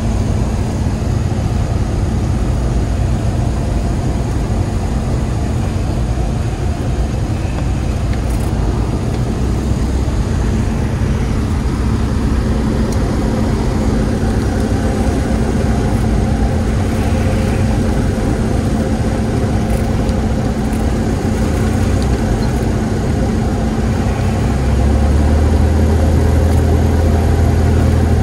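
Cessna 172S's four-cylinder Lycoming engine and propeller running steadily at low power on the landing approach, heard inside the cockpit. A deeper rumble grows louder near the end as the plane comes down over the runway.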